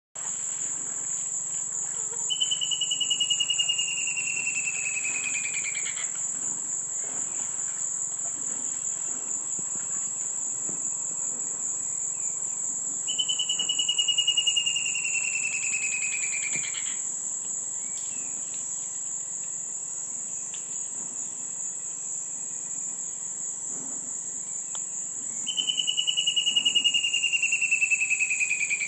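Antbird singing three times: each song is a fast run of notes that slides down in pitch and lasts about three and a half seconds. A steady high insect drone runs underneath.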